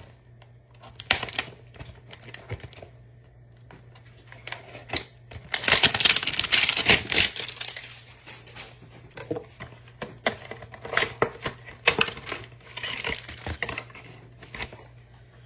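Crinkling and tearing of packaging as a trading-card hanger box is opened, with scattered clicks and rustles of cards and cardboard being handled. The loudest crinkling comes in a stretch in the middle.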